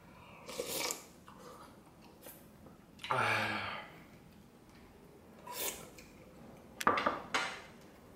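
Eating seaweed soup from a wooden spoon: a few short slurps, with a brief vocal sound of tasting about three seconds in. A sharp clink of tableware comes near the end.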